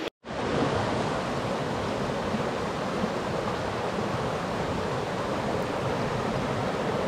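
A fast, shallow river rushing over rocks and a small rapid, a steady even rush of water that comes in just after a moment's silence.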